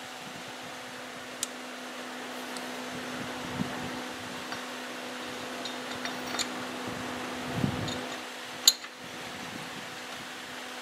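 Steady motor hum like a shop fan, with a few short metallic clicks and knocks from the lathe spindle and headstock gears being turned by hand; the sharpest click comes about two seconds before the end.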